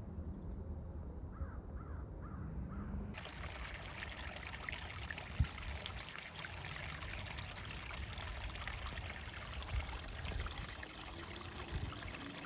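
A bird calling faintly a few times in the first seconds, then, after an abrupt change about three seconds in, the steady trickle of flowing stream water.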